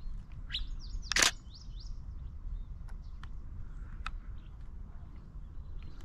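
Wild birds chirping: a few short, high chirps and quick calls in the first two seconds, then scattered faint ticks. There is one sharp, loud click about a second in, over a low, steady outdoor rumble.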